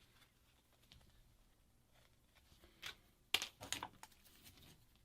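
Faint ticks and small handling noises. A little past halfway comes a short cluster of sharp clicks and crackles, the sound of broken parts being pried and peeled off a smashed phone screen.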